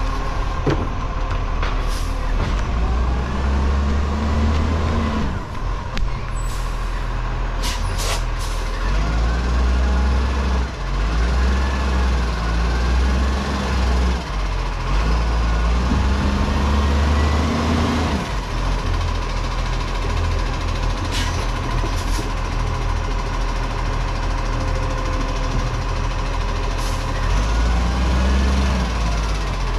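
Side-loader garbage truck's diesel engine revving up again and again as it manoeuvres, its pitch rising with each rev, over a steady whine. Sharp air-brake hisses come every several seconds.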